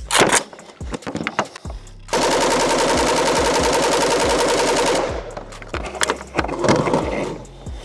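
Pioneer Arms 5.56 AK rifle firing one long full-auto burst of about thirty rounds, lasting roughly three seconds at a steady rate. Before it, just after the start, comes a loud clack of the reload; after it, a few seconds of metallic handling clatter.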